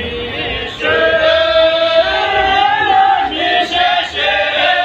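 A group of voices singing a Tamang folk song together, men's voices strongest, in long held notes that bend up and down.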